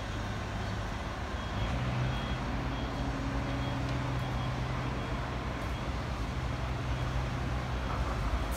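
Tokyo Disney Resort Line monorail train arriving, its electric drive giving a steady low hum that comes in about a second and a half in. Faint high beeps repeat for a couple of seconds early in the approach.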